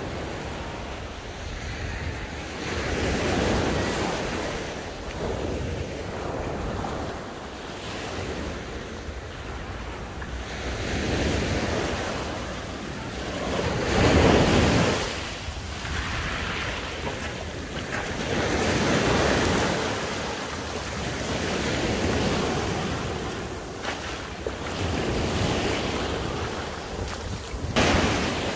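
Sea waves washing onto the shore, swelling and falling every few seconds, the largest about halfway through, with wind buffeting the microphone.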